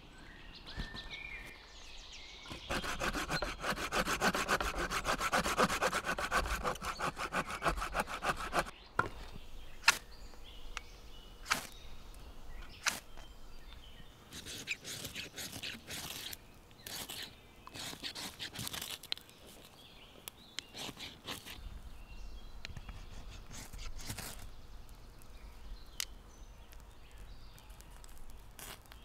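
A knife scraping and shaving wood to make tinder for a fire: a run of fast, even strokes for about six seconds, then slower separate scrapes and sharp clicks.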